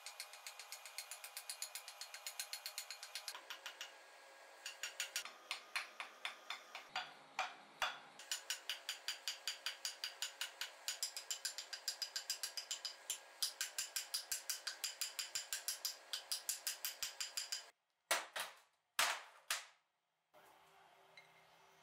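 A hammer forging a red-hot steel bar end on an anvil: rapid, steady blows, about four a second, each with a bright metallic ring. Near the end come a few louder separate knocks, then quiet.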